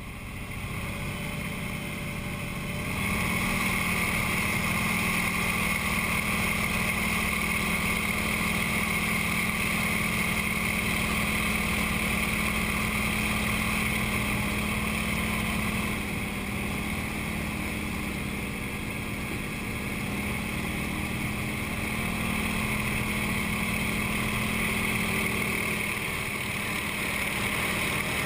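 Nine-cylinder radial engine of a CJ-6A/Yak-52 trainer heard from inside the cockpit, running steadily with a propeller hum. It gets louder about three seconds in as power comes up for the takeoff roll, and its tone shifts slightly about halfway through as the aircraft climbs out.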